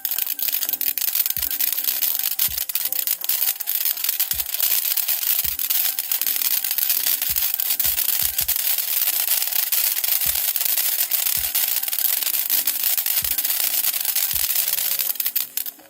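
Brothers One Man Band firework fountain spraying sparks: a loud, steady hiss that stops abruptly near the end, with background music underneath.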